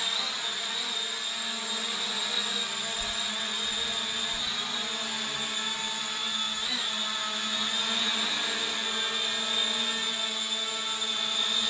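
Mini foldable 998 quadcopter drone in flight, its four propeller motors giving a steady high-pitched whine and buzz, with small shifts in pitch as it manoeuvres.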